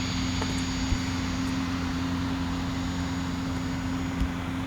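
Steady drone of a light propeller aircraft's engine running, a constant low hum under an even hiss.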